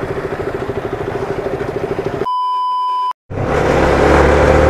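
Motorcycle engine idling with an even, rapid pulse. About two seconds in, all other sound drops out under a steady, clean, high beep lasting just under a second, typical of a censor bleep. After a brief dead silence, louder engine noise returns.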